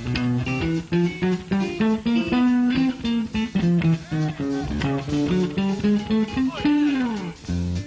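Electric guitar solo in a live swing band: quick single picked notes in short phrases, with the backing thinned out, and a note sliding down in pitch near the end.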